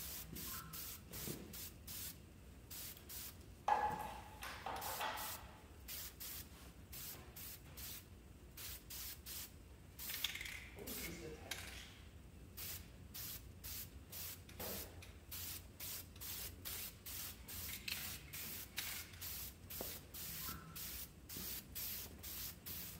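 Aerosol spray-paint can hissing in short bursts, roughly two a second, as paint is sprayed in quick passes. Louder handling noises come about four seconds in and again around ten seconds.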